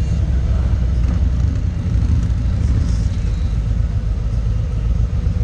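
Touring motorcycle engines running at low speed, a steady deep sound: the rider's own bike with others rolling just ahead.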